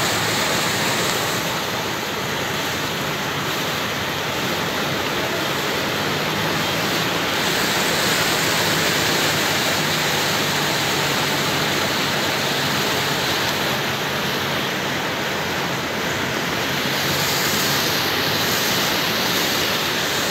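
Floodwater rushing steadily across and over the edge of a paved road, a continuous, even rush of water.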